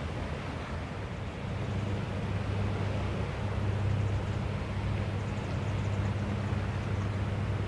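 Motorboat engine droning steadily with a low hum, growing louder about a second and a half in, over a hiss of wind and water.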